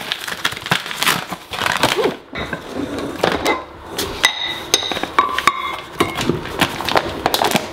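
Stiff paper flour bag crinkling and rustling as it is opened and handled, with a scoop clinking against a glass jar of flour and a few short ringing notes in the middle.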